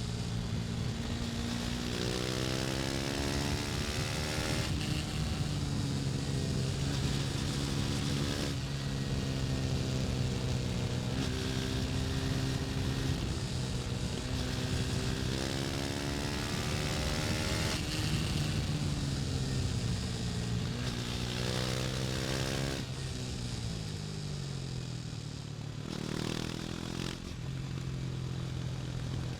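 KTM Duke 250's single-cylinder engine running under way, its pitch climbing several times as it accelerates through the gears, then dropping off as the bike slows near the end. A steady rush of wind noise runs under it.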